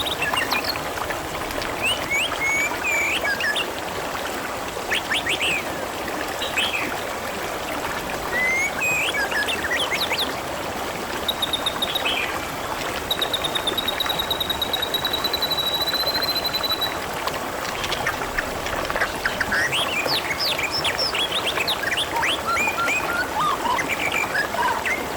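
Water trickling steadily, like a small stream, with birds chirping over it. Near the middle one long high trill is held for several seconds.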